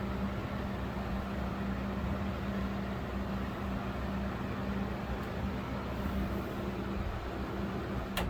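A 12-inch Patton CA-1285 box fan running steadily at medium speed: an even rush of air with a constant low motor hum. A single sharp click sounds near the end.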